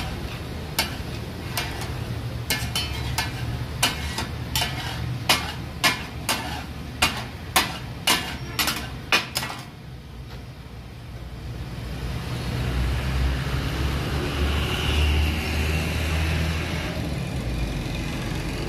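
Metal spatulas clanking and scraping on a large flat iron tawa as brains are chopped taka tak style: a run of sharp clanks, about one or two a second, that stops about nine and a half seconds in. After that a low steady rumble builds.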